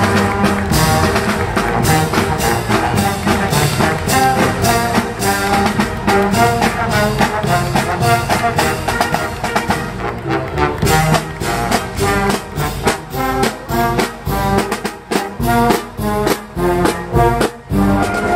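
Marching brass band playing: sousaphone, trombones, trumpets and saxophones over bass drum, snare drums and cymbals keeping a steady beat.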